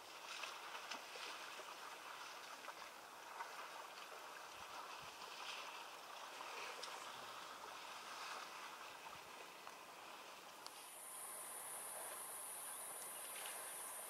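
African elephant cow and calf wading through shallow river water, their legs splashing and sloshing with each step. About three-quarters of the way through, a steady high-pitched insect drone comes in over the faint water sound.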